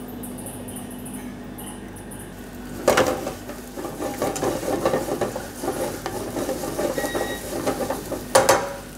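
Diced carrot frying quietly in oil in a nonstick frying pan, then, about three seconds in, a spatula starts stirring it, knocking and scraping irregularly against the pan, with a loud scrape near the end.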